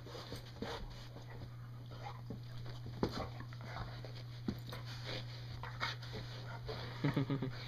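Two golden retrievers nosing and tugging at cargo shorts to get at a Velcroed tennis ball: scattered scuffling, sniffing and fabric noises over a steady low hum. A short pulsing dog vocal sound comes about seven seconds in.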